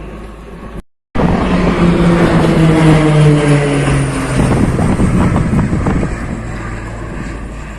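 A fast vehicle passing by, its engine sound loud and falling steadily in pitch as it goes past, after a brief cut to silence about a second in.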